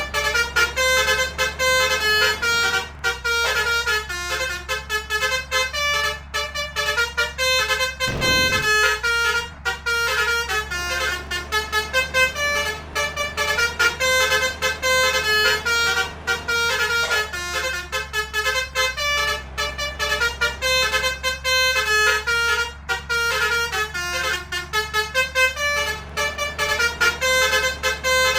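Basuri 'telolet' multi-trumpet horn playing a fast tune of quickly changing notes without a break, over a steady low hum. About eight seconds in a brief falling tone sweeps down.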